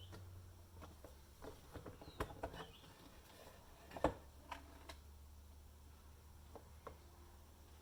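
Scattered light clicks and taps of parts and tools being handled while an induction cooker is taken apart, the loudest knock about four seconds in, over a low steady hum.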